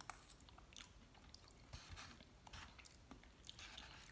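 Faint, close chewing of a mouthful of chilaquiles (fried tortilla chips in mole sauce), with scattered small clicks.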